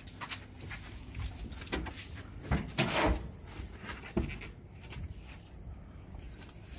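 Knocks and thuds of a plastic-wrapped speaker cabinet being pushed through a rear door into a small car's back seat. The loudest bumps come about two and a half to three seconds in, with another single knock about a second later.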